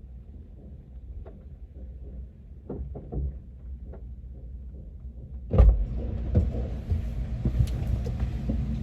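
Low rumble of a car with a few soft knocks. About five and a half seconds in, a car door thumps and steadier, louder outdoor noise with scattered clicks follows.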